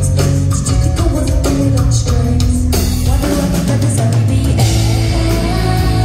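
A rock band playing live and loud: drum kit beating a steady rhythm under electric guitars, bass and keyboards. About four and a half seconds in, the sound fills out at the top.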